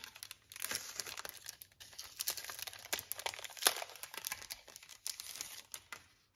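Clear plastic packaging bags crinkling and rustling as hands handle them, with irregular crackles throughout.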